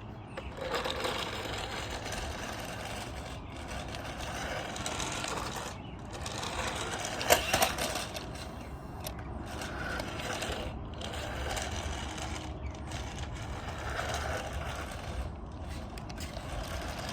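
Electric motor of a battery-powered remote-control toy vehicle whirring as it is driven, in runs of a few seconds broken by short pauses. A sharp clatter about seven seconds in is the loudest moment.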